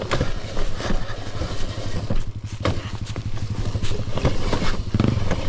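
Small gas dirt bike engine running steadily while riding a trail, with scattered knocks and rattles over it.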